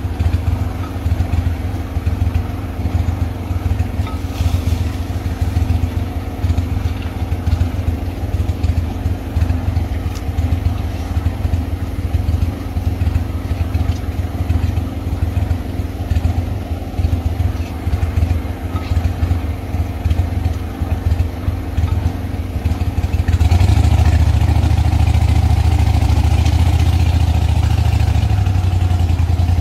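Small boat's motor idling steadily, then throttled up about three-quarters of the way through and running louder and steady as the boat gets under way.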